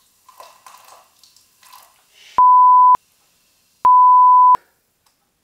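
Faint splashing and fizz of Coca-Cola poured over ice cubes in a glass, followed by two loud, steady censor bleeps, the first short and the second a little longer, about a second apart.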